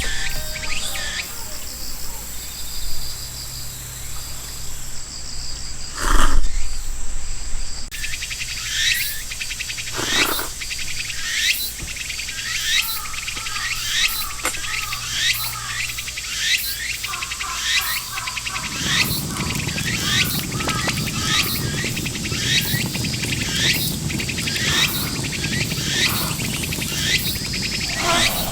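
Higurashi (evening cicadas) calling in a long series of short falling notes over a steady high insect trill. There is a single thump about six seconds in, and a low rushing noise comes in about two-thirds of the way through.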